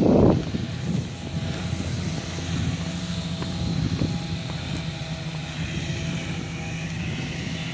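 Steady engine drone: an even low hum with a few held tones. It follows a brief burst of louder noise right at the start.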